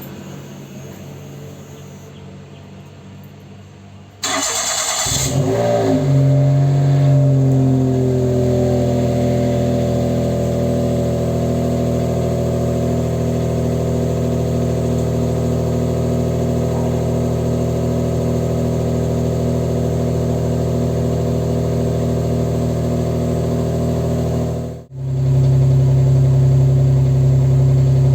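Daihatsu L900's EF-DET three-cylinder turbo engine, on 2-inch exhaust piping with a screamer downpipe, cold started. It cranks briefly about four seconds in, catches, and within a few seconds settles into a steady idle. Near the end the sound cuts out for a moment and comes back louder.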